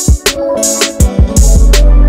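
Background music with a drum beat, with a deep bass line that comes in strongly about one and a half seconds in.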